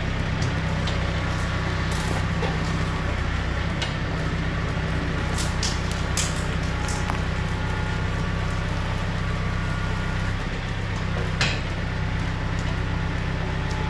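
Tractor engine running at a steady speed, with a few scattered light clicks and knocks, the sharpest one near the end.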